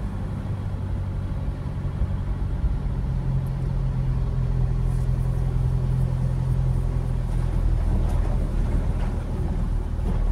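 Car engine running steadily in slow traffic, heard from inside the cabin as a low hum.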